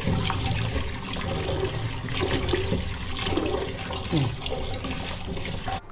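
Tap water running into a metal pan of chopped cassava pieces in a stainless steel sink as the pieces are washed by hand; the water sound cuts off near the end.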